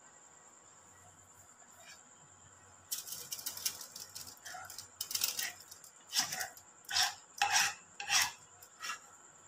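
A spatula scraping thick, cooked kalakand (milk-and-sugar fudge) mixture out of a pan into a foil-lined tray. It is a run of scraping strokes starting about three seconds in, with the loudest four near the end.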